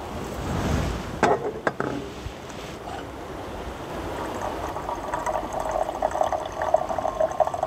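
A few sharp clicks about a second in, then a steady liquid sound with a fine crackle that builds over the last few seconds.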